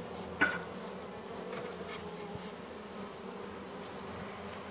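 Honeybees humming steadily over an open hive frame, with one brief sharp sound about half a second in.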